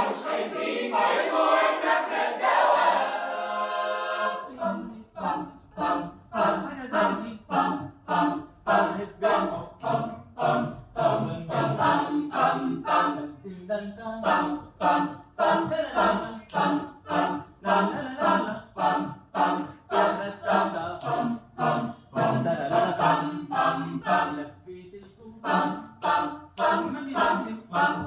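Mixed a cappella vocal group of men and women singing without instruments. A held chord opens, then gives way about four seconds in to a brisk rhythm of short, clipped sung notes, about three a second.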